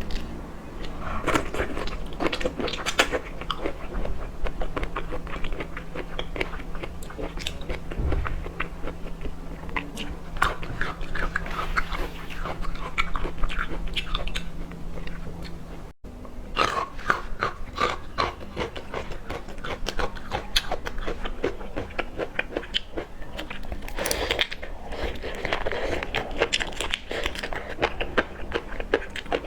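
Close-miked mouth sounds of a person eating seafood: irregular biting, crunching and wet chewing and smacking. Partway through there is a brief dip, as at an edit, and a faint steady hum in the first half stops.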